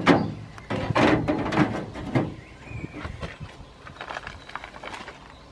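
Clunks and scraping as something is handled and lifted out of an empty metal under-floor box. Several knocks come in the first two seconds, then quieter rattling.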